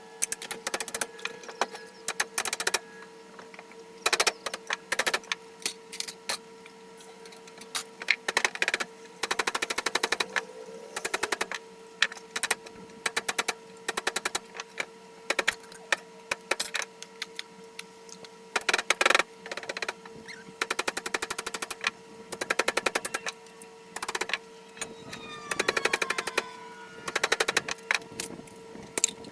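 A pneumatic tool chattering in repeated short bursts of very fast clicks, about twenty bursts each lasting under a second, over a steady hum. A few falling squeals come near the end.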